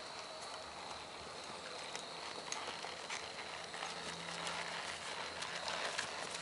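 Hoofbeats of a ridden horse moving briskly over grass and dirt, a run of soft thuds and clicks that grow louder and more distinct in the second half as the horse passes close by.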